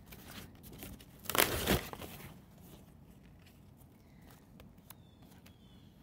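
Brown paper padded mailer rustling and crinkling as the album is pulled out of it, loudest in a burst about a second and a half in, then dying away. A few faint, short high chirps, like a bird's, near the end.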